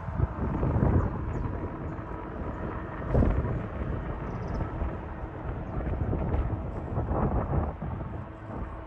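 Jet airliner engines rumbling at a distance, with gusts of wind buffeting the microphone in irregular low thumps.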